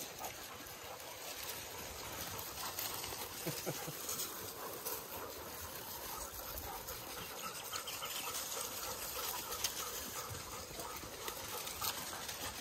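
Dogs moving about through bush, with scattered faint rustles and footfalls over a steady outdoor hiss; no barking.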